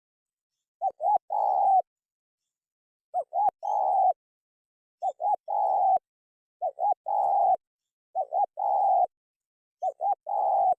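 Spotted dove (terkukur) cooing: a phrase of two short coos and one longer coo, repeated six times at about one-and-a-half to two second intervals.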